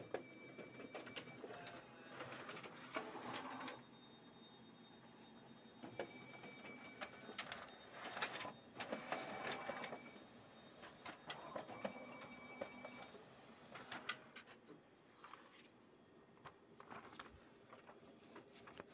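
Canon imageRUNNER office photocopier running a duplex copy job, its paper feed and transport working in repeated bursts of whirring and rustling as sheets pass through to the output tray. A short high tone recurs about every six seconds.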